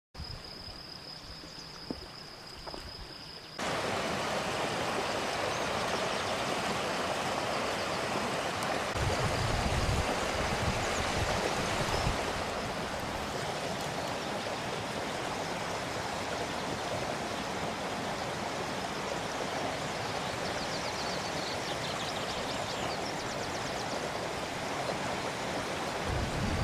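Mountain stream rushing over rocks: a steady, even rush of water that comes in suddenly about three and a half seconds in. Before that only a faint, steady high-pitched tone is heard.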